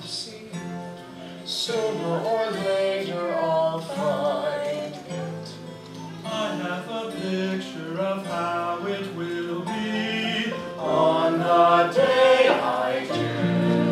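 Live musical-theatre singing, long held and wavering notes over steady instrumental accompaniment, swelling louder about eleven seconds in.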